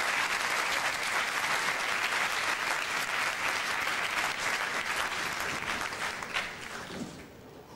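Audience applauding: dense clapping that thins out and dies away about seven seconds in.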